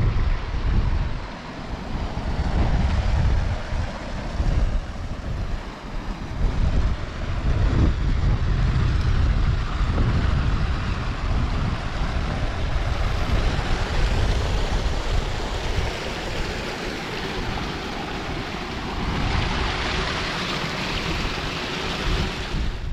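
Strong gusty wind buffeting the microphone: a heavy low rumble that surges and drops every second or two over a steady hiss.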